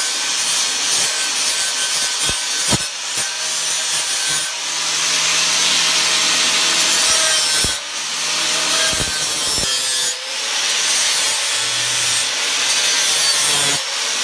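Angle grinder with a flap disc grinding and trimming the edge of a steel sheet-metal patch panel, a loud continuous grinding hiss that eases off briefly a couple of times.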